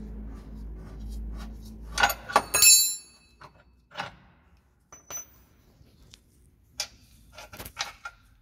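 Hand wrench and socket clinking and knocking on the steel lower control arm's 19 mm nut and bolt: a cluster of loud metallic clinks with a brief ringing about two to three seconds in, then scattered lighter taps and knocks. A low hum underneath stops just before the loud clinks.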